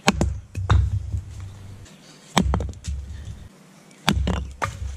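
Wenger Blades Beohawk hatchet chopping into a small upright log round on a stump to split it: about five sharp wooden chops, spaced unevenly with pauses between.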